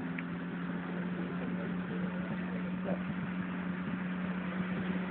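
Off-road buggy's engine running steadily at an even pitch.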